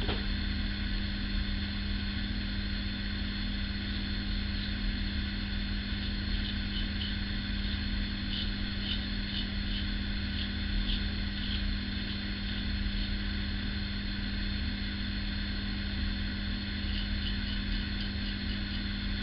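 Single-edge safety razor scraping through lathered stubble in short faint strokes, a few clusters of strokes in the middle and again near the end, over a steady low mechanical hum.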